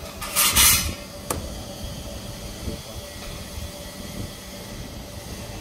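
A short, loud hiss of compressed air lasting about half a second, followed by a single sharp click, over the steady hum of a CNC bearing-ring grinding machine.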